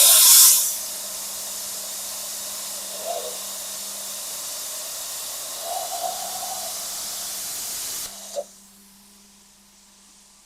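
Handheld air plasma cutter set to about 25 amps, hissing as it cuts metal: a loud rush of air for the first half second, then a steady hiss that cuts off suddenly about eight seconds in. A faint steady hum runs underneath.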